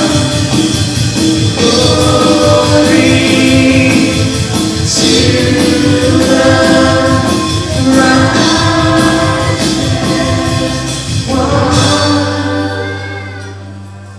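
Live worship band with singers and the congregation singing along over a steady drum beat. Near the end the drums stop and the music fades down to a long held note.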